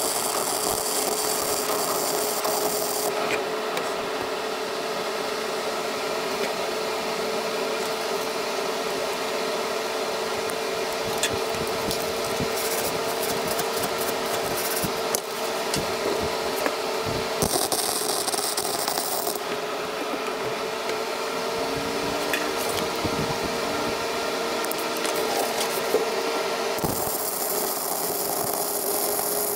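Titanium 125 flux-core wire welder arc-welding a cracked steel joint, crackling and sizzling in three separate beads: about three seconds at the start, about two seconds in the middle, and another starting near the end. Between beads the arc is off, with only a few clicks over a steady hum.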